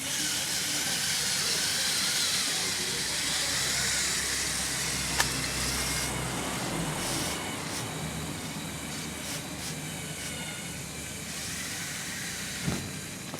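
Small electric motors of a Lego Technic off-road model whining and shifting in pitch as it drives, over a steady hiss, with a sharp click about five seconds in.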